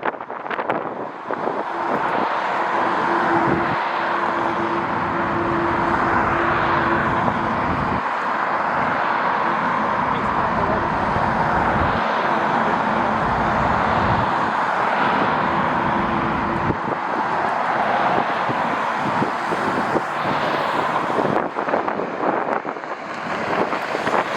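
Jet airliner engines running, a loud steady roar with a constant low hum through most of it that fades out late on.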